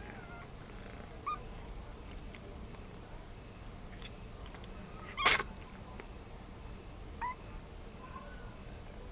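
A domestic cat making two brief, high chirping meows, about a second in and again about seven seconds in. A single loud, sharp sound comes about five seconds in.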